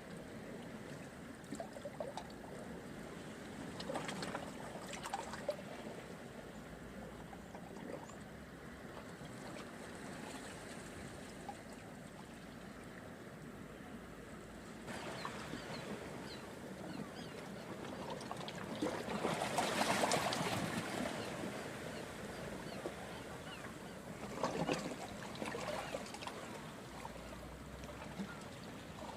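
Seawater washing and trickling among shore rocks and seaweed, with fizzing surges as the wash comes in. The biggest surge builds to a peak about two-thirds of the way through.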